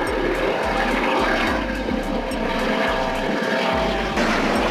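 Turbine helicopter flying overhead: steady rotor noise with a whining turbine tone.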